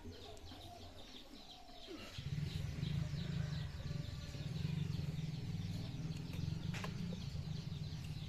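Small birds chirping and twittering, with a low, fluttering rumble starting about two seconds in and running on. A single sharp click comes near the end.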